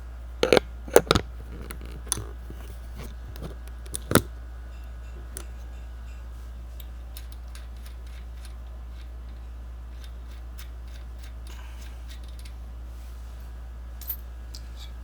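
Hand tools being handled on a workbench: a quick cluster of sharp clicks and knocks in the first second or so, a single knock about four seconds in, and a faint click near the end, over a steady low hum.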